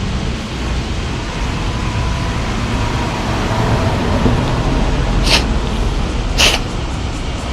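A cat sneezing twice, about a second apart; each sneeze is a short, sharp, hissy burst, and the second is louder. A steady low rumble runs underneath.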